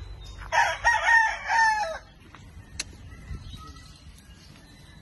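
Rooster crowing: one multi-note cock-a-doodle-doo from about half a second in to about two seconds. A sharp click follows, then faint high calls.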